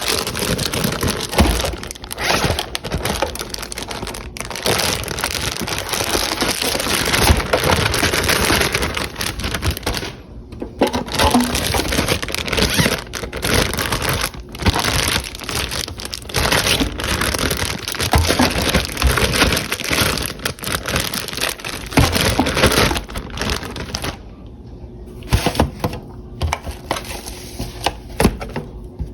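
Plastic bags crinkling and crackling with sharp clicks while marinated ribs are pulled out of them, handled almost without pause, easing off briefly near the end.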